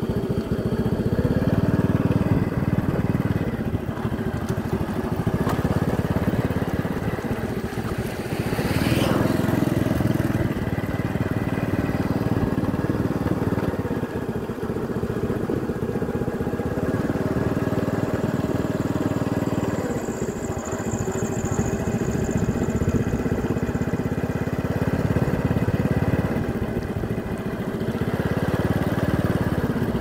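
Motorcycle engine running steadily along a road, its note rising and falling every few seconds with the throttle, under a bed of road and wind noise. A brief rising whine cuts through about nine seconds in.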